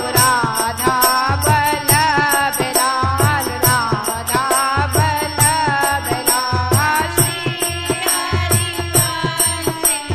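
Indian devotional music for a naam dhun: a melody that slides and bends in pitch over a steady drum beat, with evenly spaced high ticks from small hand percussion.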